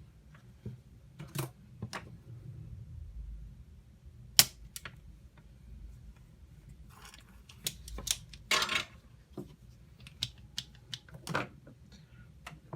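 Irregular small clicks, taps and a brief scrape of hand tools working on a circuit board during desoldering, the sharpest click about four seconds in and a busier cluster of clicks and scraping a few seconds later.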